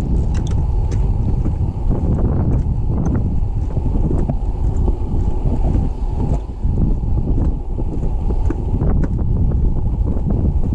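Wind buffeting the camera microphone in a loud, steady low rumble, with faint footsteps on a wooden boardwalk ticking through it.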